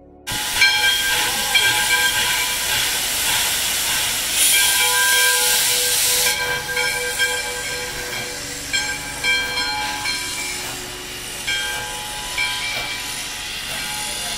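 Nevada Northern steam locomotive No. 93, a 2-8-0, hissing steam as it moves slowly past, with a louder rush of steam from about four to six seconds in.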